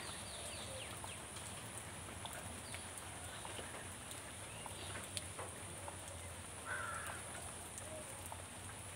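Faint outdoor ambience with a few short bird calls, the clearest a single harsh call about seven seconds in, over a steady high hiss and scattered light ticks.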